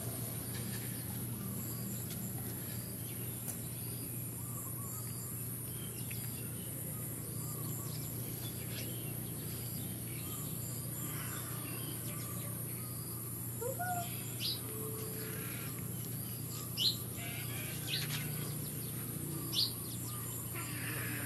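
A steady low hum of background noise, with a few short, high animal chirps starting about fourteen seconds in.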